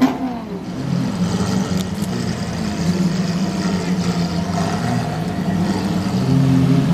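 Lamborghini engines with loud modified exhausts running at low revs, a steady deep note that swells a little near the end.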